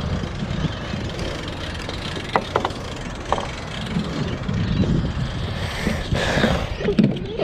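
Wind rumbling on the microphone, with a few light clicks about two and a half and three and a half seconds in.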